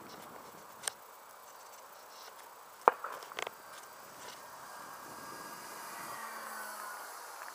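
Radio-controlled model aeroplane flying past with a faint, thin motor drone that grows louder toward a close pass about six seconds in, its pitch falling as it goes by. A few sharp clicks, the loudest about three seconds in.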